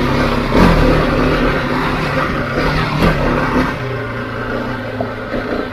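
Husqvarna 701's single-cylinder engine pulling the motorcycle up a dirt track, easing off about four seconds in.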